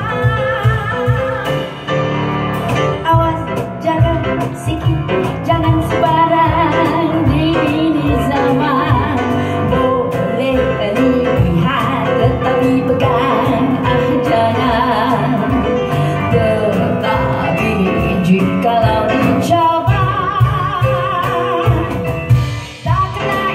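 A woman singing with a wavering vibrato, accompanied by grand piano and percussion in a live performance. The music dips briefly near the end.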